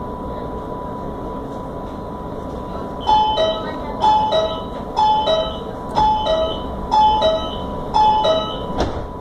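Door warning chime of a Línea Sarmiento CSR electric train sounding six times, about once a second: each a two-note falling ding-dong, over the carriage's steady hum and a thin high whine. A single sharp thump follows near the end.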